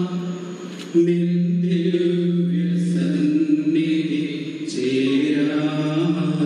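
Slow funeral chant sung in long, held notes, with a short break between phrases about a second in and another near five seconds.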